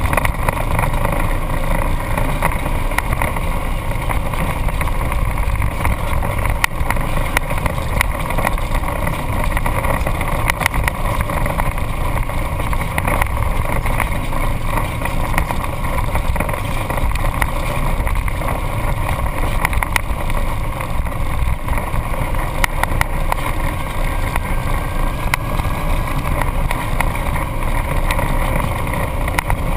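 Off-road vehicle's engine running steadily as it drives over a bumpy dirt trail, picked up by a hood-mounted action camera. Frequent small knocks and rattles run through it.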